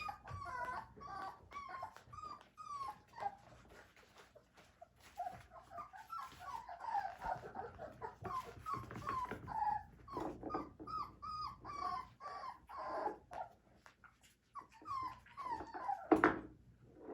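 Four-week-old puppies whining and whimpering in a string of short high calls, several a second, with a louder cry near the end.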